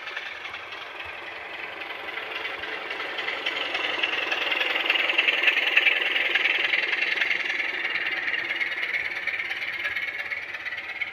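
DCC sound decoder in a model Class 27 diesel locomotive playing the diesel engine sound through the model's small speaker, a steady engine chug. It grows louder over the first few seconds and then holds steady.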